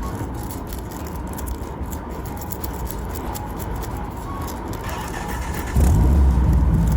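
Car engine sound running steadily, with a sudden louder, deeper engine rumble cutting in about six seconds in.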